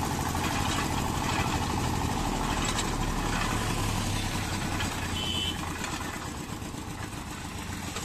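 Engine-driven sugarcane juice crusher running steadily: its small engine drives the belt, flywheel and gear rollers while cane is fed through.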